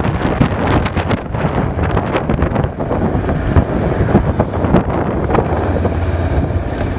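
A car driving, heard through a dashcam's microphone: steady road rumble and wind noise, with many small knocks and bumps.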